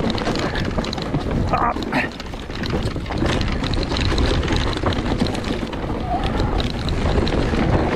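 Wind buffeting a body-mounted camera's microphone while a mountain bike rides a rough trail, with the rumble of the tyres and frequent rattling knocks from the bike over rough ground.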